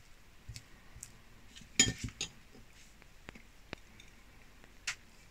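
A table knife clinking and scraping against a ceramic plate as butter is spread on a slice of cake: a handful of light clicks and knocks, the loudest clink just under two seconds in.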